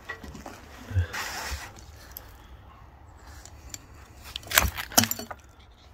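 A thump and a short rustling scrape about a second in, then a few sharp knocks and clatters about four and a half and five seconds in, as of objects being handled.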